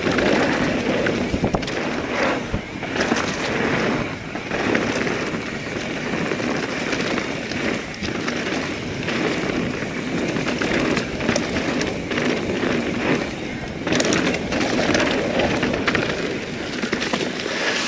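Norco Sight full-suspension mountain bike riding a dirt trail: steady tyre noise and rattle with frequent sharp knocks and clatters from the chain and frame, and a harder hit about fourteen seconds in. Wind rushes over the action camera's microphone.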